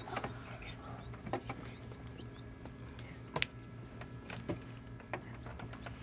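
Newly hatched chicks peeping faintly inside an egg incubator, with scattered short clicks over a steady low hum.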